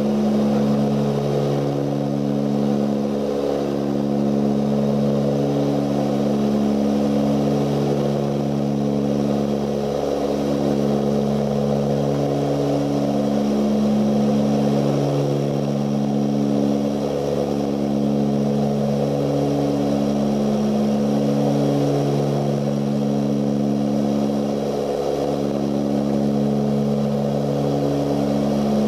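Ilyushin Il-18's four Ivchenko AI-20 turboprop engines and propellers in cruise, heard from inside the passenger cabin. A steady, loud drone made of several low tones that slowly swell and fade every few seconds.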